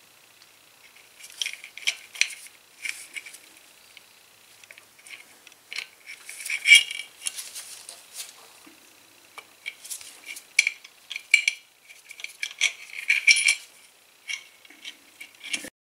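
Irregular light metal clinks and rattles as the cylinder head of a 150cc go-kart engine is wiggled and pried loose off its studs, with a louder cluster near the middle.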